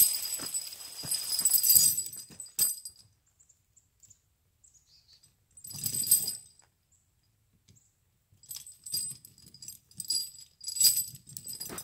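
Heavy studded steel tractor tire chains clinking and rattling as they are lifted and hooked onto a rear tire, in several bouts with quiet gaps between.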